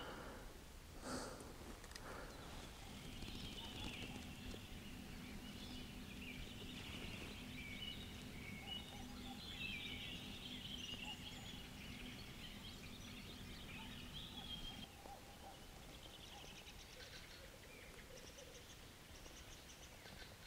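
Faint evening birdsong: scattered small birds chirping and trilling, with a faint steady low hum through the middle of it. There is one short click about a second in.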